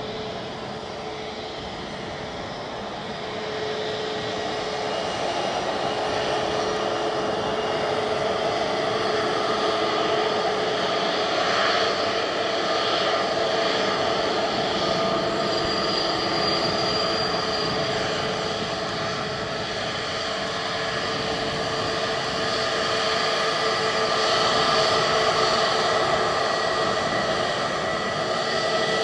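Jet engines of Airbus A320neo-family airliners taxiing at low power: a steady whine with several held tones over a rushing noise. It grows louder about three or four seconds in.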